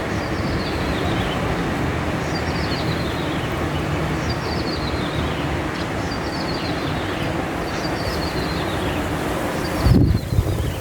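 A small wild songbird, the ciblek sawah or klik-klik, repeating a short high descending phrase about every one and a half to two seconds, heard through a loud steady rumbling background noise. A low thump comes near the end.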